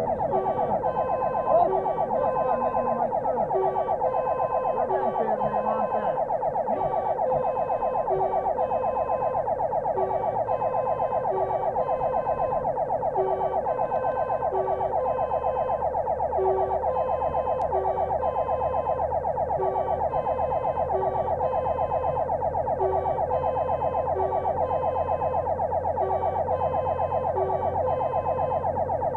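Fire engine's electronic siren sounding continuously in a rapid warble, heard from inside the vehicle's cab on an emergency run.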